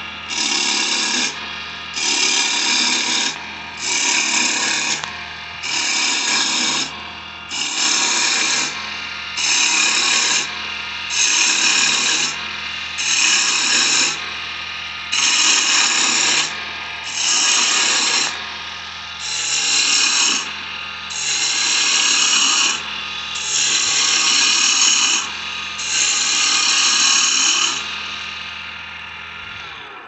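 Wood lathe turning a cedar blank while a turning tool takes repeated passes along it. The cutting comes in bursts of about a second, roughly every one and a half seconds, over the steady hum of the lathe. The cutting stops near the end and the sound dies away.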